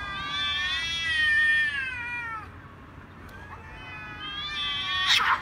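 Domestic cats caterwauling in a face-off: long, drawn-out, wavering threat yowls. One fades out about halfway through and another rises near the end, followed by a sudden loud harsh hiss.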